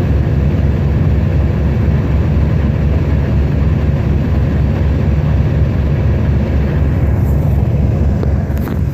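John Deere 8320 tractor's six-cylinder diesel engine running steadily with an even low pulsing.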